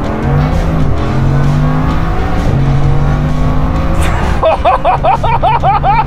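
Bugatti Chiron Super Sport 300+'s quad-turbo W16 engine pulling hard under full acceleration, heard from inside the cabin, its pitch climbing and dropping back at gear changes. From about four and a half seconds in, a repeating warbling music pattern comes in over the engine.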